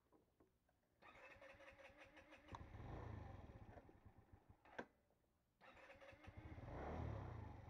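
Arora Capirossi 50cc scooter being started with its electric starter. The first try whirs, catches briefly and dies away. After a click, a second try catches about a second later and the engine keeps running.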